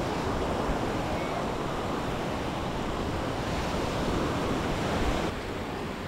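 Small waves washing onto a sandy beach, a steady rush of surf, with wind buffeting the microphone. The sound dips slightly about five seconds in.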